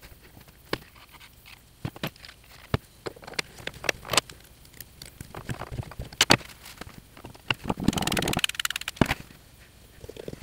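Metal parts of a Taig mini-lathe's aluminium cross slide and compound slide being handled, slid and set down: scattered sharp clicks and knocks, with a dense rapid rattle lasting about a second near the end.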